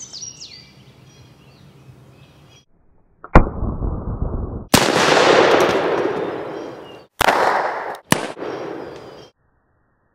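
Four shots from a Pietta-built EMF Pony Express single-action revolver chambered for .357 Magnum/.38 Special, fired at an uneven pace, each followed by a long echoing decay.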